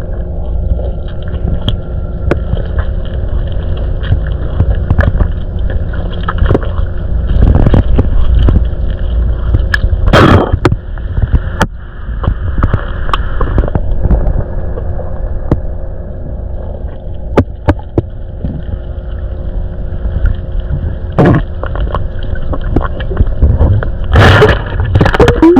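Underwater sound of a man drinking a bottle of cola while submerged: a steady low rumble with scattered clicks and gurgles, and louder bursts of bubbles about ten seconds in and again near the end.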